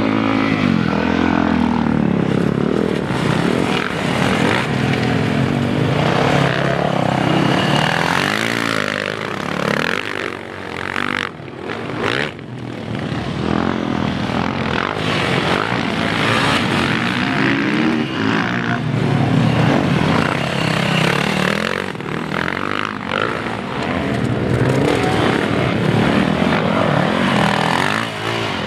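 Motocross dirt bike engines racing, revving up and easing off over and over, so the pitch keeps rising and falling. The engine sound dips for a couple of seconds near the middle.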